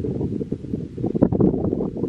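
Wind buffeting the camera microphone as a low, uneven rumble, with irregular rustles and bumps that grow busier about a second in.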